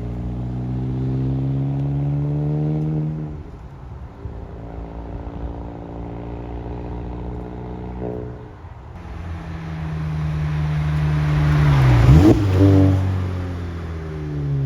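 Mk7 Volkswagen Golf's turbocharged 2.0-litre four-cylinder with an APR cat-back exhaust and catless downpipe, accelerating gently in normal driving mode with two upshifts, at about three and a half and eight and a half seconds. The car then comes close and passes, its sound swelling to the loudest point about twelve seconds in, with the pitch dipping as it goes by.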